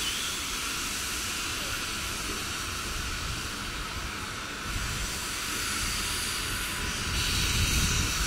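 Steam locomotive hauling a train slowly away from a station: a steady hiss of steam with the low rumble of the train, growing a little louder near the end.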